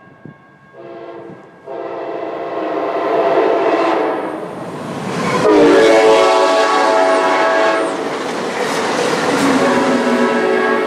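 Amtrak Cascades Talgo Series 8 train, cab car leading, passing at speed with its horn sounding: a short blast, then long ones. The horn's pitch drops as the cab car goes by, about five and a half seconds in, over a loud rush of wind and wheels.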